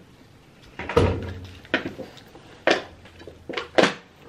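A few short clicks and rustles of handling, about five in all, the loudest about a second in.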